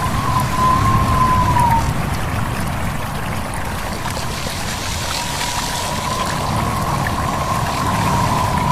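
A stream babbling steadily, with a low gusty rumble of wind. A thin wavering whistle-like tone sounds for the first two seconds and comes back from about six seconds in.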